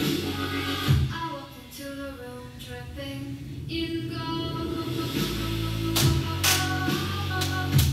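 A song playing, with a singing voice over quieter backing about a second in, then the full band coming back in with drum hits near the end.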